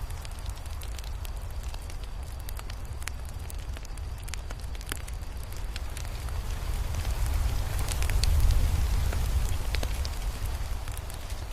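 Crackling fire: irregular sharp pops and snaps over a steady low rumble, which swells about eight seconds in and then eases.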